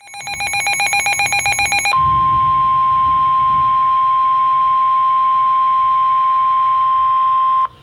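Weather-radio alert tones: about two seconds of rapid electronic beeping, then the steady 1050 Hz NOAA Weather Radio warning alarm tone, held for nearly six seconds before it cuts off suddenly. The tone signals that a severe thunderstorm warning is being broadcast.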